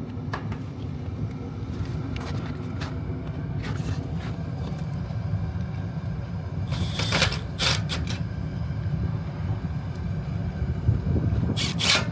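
Rooftop HVAC unit running with a steady low rumble after its inducer motor was replaced. Brief hissy noise bursts come twice, about seven seconds in and near the end.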